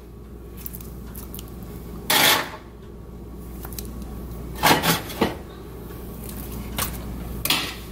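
Metal tongs knocking and scraping against a non-stick pan as beef ribs are shifted around in broth: a few separate clatters, about two, four and a half, five and seven and a half seconds in.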